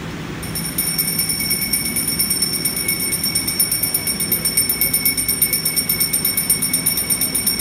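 Brass puja hand bell rung rapidly and continuously, starting about half a second in: a high, steady metallic ringing pulsing several times a second.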